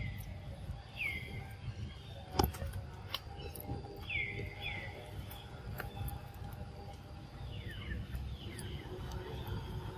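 Short high animal calls, each sweeping down in pitch, mostly in pairs about half a second apart, over a low rumble. A single sharp knock about two and a half seconds in is the loudest sound.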